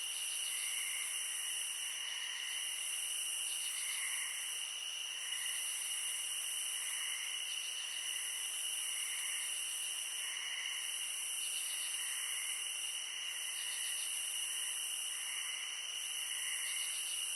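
Insect chorus: steady high-pitched trilling with a higher buzzing that swells and fades about once a second, and soft repeated chirps.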